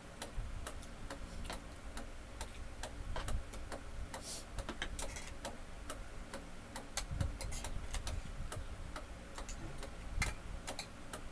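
Spoons and forks clicking and scraping irregularly against ceramic plates while eating, over a low steady hum that the diners put down to their noisy electric pan.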